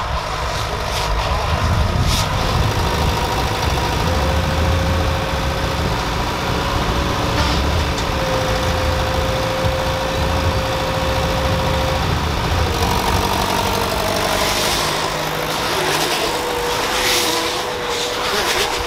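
Case IH JXU tractor running under load, driving a Goweil combined baler and bale wrapper in operation. A steady whine rises above the engine from about four seconds in and stops around twelve seconds.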